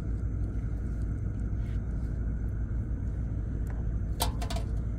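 A steady low rumble, with a short cluster of sharp clicks and rattles about four seconds in.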